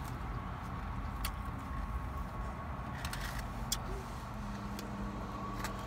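Steady low hum of a car heard from inside the cabin, with a thin steady whine above it. A few faint clicks and a short rustle come from handling food in a foam takeout box.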